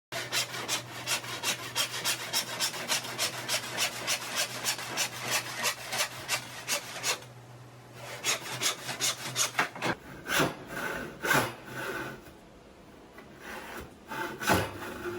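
Hand saw crosscutting a 1x4 board: fast, even back-and-forth strokes with a short pause about seven seconds in. About ten seconds in, the strokes become slower and more uneven.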